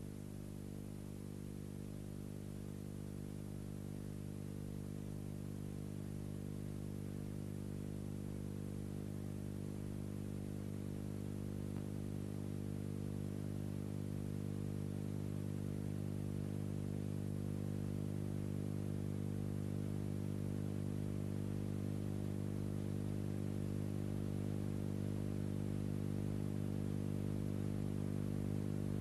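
A steady low hum with many even overtones, unchanging in pitch, slowly growing louder through the stretch.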